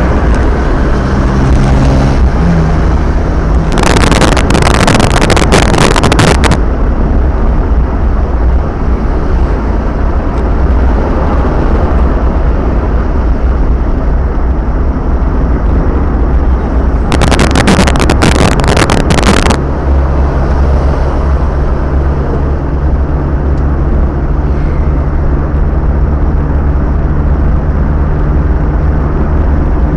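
Road noise heard from inside a car cruising on a highway: a steady low rumble of engine and tyres. Two spells of loud crackling hiss, each a couple of seconds long, come about four seconds in and again about seventeen seconds in.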